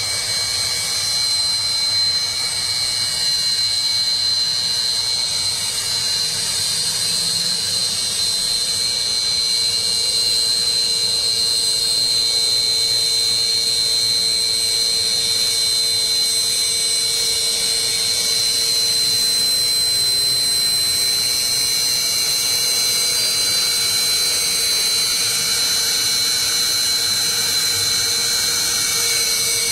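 Sukhoi Su-30SM fighter jets taxiing with their AL-31FP turbofan engines at low power. The sound is a steady high-pitched whine over a loud hiss.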